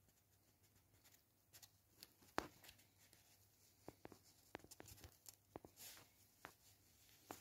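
Faint rustling and small sharp clicks of a paper card and banknotes being handled, scattered irregularly, the sharpest about two and a half seconds in.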